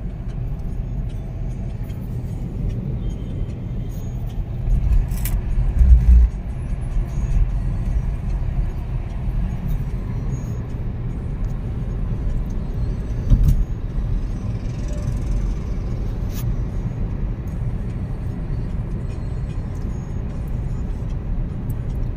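A car's engine and road noise heard from inside the cabin as a steady low rumble while driving, with two louder low thumps about six seconds in and again about thirteen seconds in.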